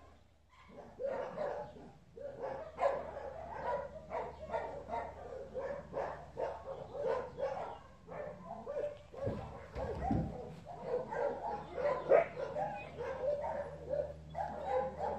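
Dogs barking and yipping over and over, many short calls packed close together with no pause. A brief low rumble comes about nine seconds in.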